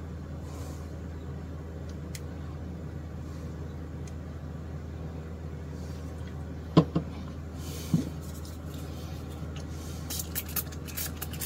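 Steady low hum of the workshop room, with a sharp knock about seven seconds in and a softer one about a second later as the plastic CA glue bottle is set down on the workbench. Light scratchy handling noises follow near the end as a hand moves over the guitar neck.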